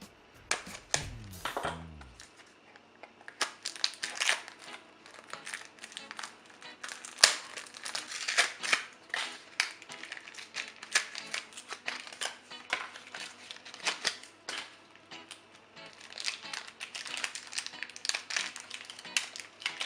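Crinkly plastic packaging of a Shopkins blind basket being torn open and handled, with irregular crackles and one sharp snap about seven seconds in. A short snatch of music plays in the first two seconds.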